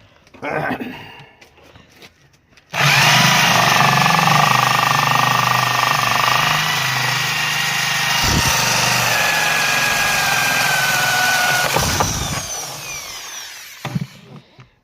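Electric drill boring the mounting holes for charge ports: it starts suddenly about three seconds in, runs steadily for about nine seconds, then winds down with a falling whine.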